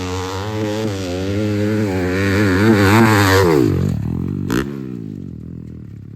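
Grasstrack dirt-bike engine revving hard, its pitch wavering up and down as the throttle is worked and growing louder. About three and a half seconds in the pitch drops steeply and the sound falls away. A single sharp click follows about a second later.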